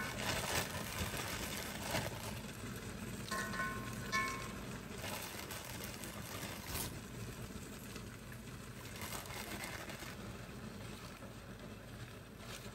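Frozen okra and broccoli sizzling and steaming in a hot cast-iron pan, a steady hiss with a few light knocks, under faint background music.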